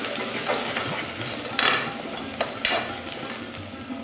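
Onion masala with green peas, mint and coriander sizzling as it fries in oil and ghee in a stainless steel pot, stirred with a metal spatula that scrapes the pot several times.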